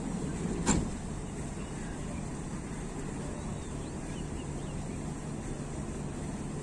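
Outdoor city ambience: a steady distant rumble of traffic, with one sharp knock less than a second in and a few faint high chirps.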